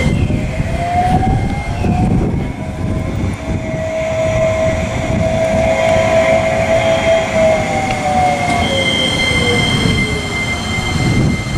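CAF Urbos AXL low-floor electric tram passing close by: its motor whine rises over the first two seconds, holds steady, then falls away near the end, over the rumble of wheels on rail. A steady high-pitched squeal runs beneath it.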